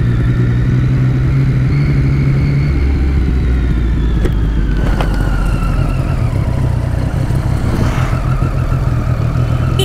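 Triumph Street Triple 675's inline three-cylinder engine with an Arrow aftermarket exhaust, heard from the bike while riding slowly. The engine note drops lower about three seconds in, then runs steady.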